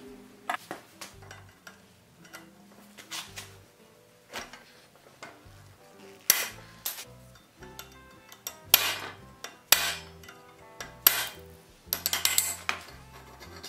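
Hammer striking iron: sharp, ringing blows at irregular intervals as the cut end of a nail through a wagon brake iron is hammered over, with a quick flurry of blows near the end. Light background music underneath.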